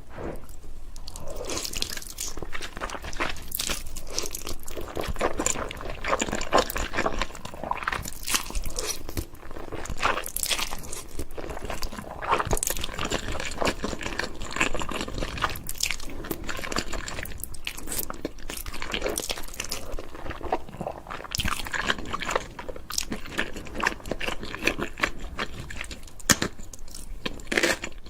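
Close-miked eating: continuous chewing with many short crunchy bites and wet mouth clicks.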